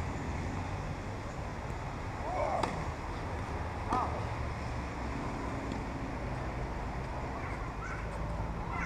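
Tennis balls struck by rackets during a rally: two sharp hits about a second and a half apart, over a steady low background rumble.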